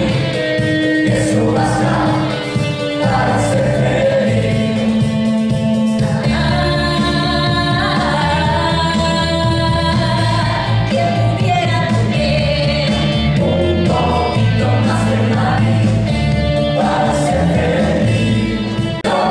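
A stage-musical song: an ensemble of voices singing over instrumental accompaniment.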